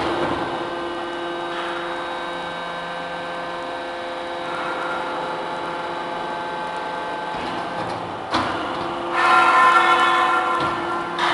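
Hydraulic double-ram metal baler running, with a steady whine from its motor and pump. There is a sharp knock at the start and another about eight seconds in, then a louder, higher squeal lasting about a second and a half near the end.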